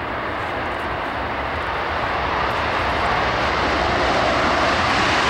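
Two F-4 Phantom jet fighters' turbojet engines running on the ground, a loud steady rush that grows steadily louder as the jets come nearer.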